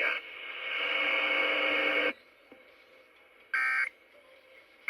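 Weather radio right after the end of a National Weather Service warning message: a steady electronic sound with several tones that cuts off suddenly about two seconds in. Then short electronic beeps follow, one about every second and a half.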